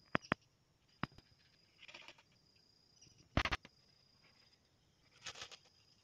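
A steady high-pitched insect drone, like a cricket. Over it come a few sharp clicks and brief rustling crackles, the loudest about halfway through.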